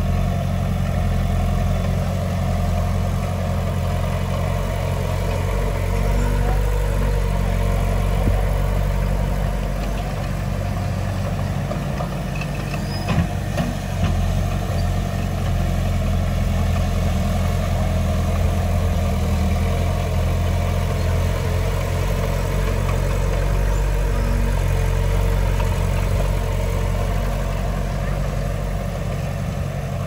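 Heavy diesel engine of earthmoving machinery running steadily, with a few brief knocks about halfway through.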